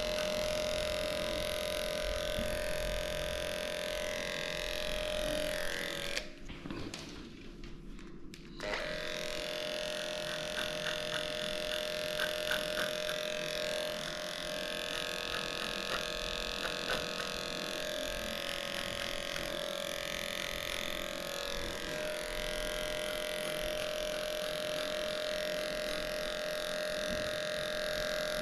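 Cordless electric dog clippers running with a steady hum as they cut through a matted, muddy coat on a small dog's legs and feet. The hum stops for about two seconds around six seconds in, then starts again.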